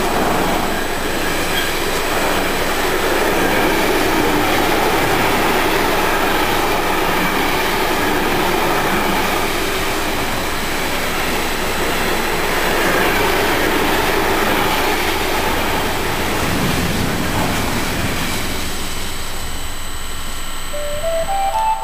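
Intermodal freight train of pocket wagons carrying truck trailers rolling past at close range: a steady rumble and clatter of wheels on the rails, with faint high tones over it. The noise eases a little near the end as the last wagons go by.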